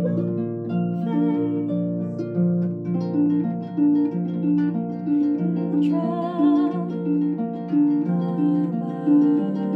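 Concert pedal harp played with both hands: a steady repeating pattern of plucked low notes under higher melody notes, each note ringing on.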